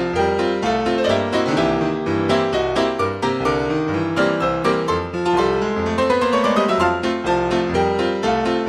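Piano accompaniment to a silent film: many quick notes in a moving melody over a steadily stepping bass line.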